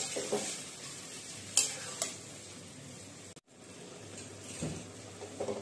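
Marinated chicken in green coriander paste sizzling in oil in a metal kadhai while a metal spatula stirs it, with sharp clicks of the spatula against the pan at the start and about a second and a half and two seconds in. The sound cuts out briefly a little past halfway.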